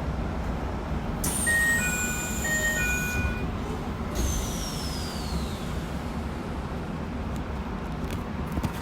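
Inside a Keikyu New 1000-series electric train car with a Toyo hybrid SiC VVVF inverter, over a steady rumble. A high whine sets in about a second in and falls in pitch, and a second falling whine follows a few seconds later. A short pattern of electronic beeping tones sounds alongside the first whine.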